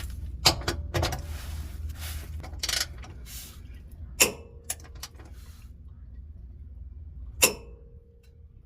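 A torque wrench and socket tightening a subframe bolt to 148 foot-pounds: a handful of sharp metallic clicks and knocks, the two loudest, about four seconds in and near the end, followed by a brief metallic ring.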